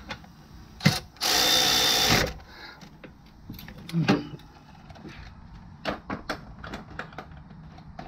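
Milwaukee cordless electric ratchet running for about a second as it drives in a rear brake caliper guide-pin bolt, followed by a few light clicks of tools and parts being handled.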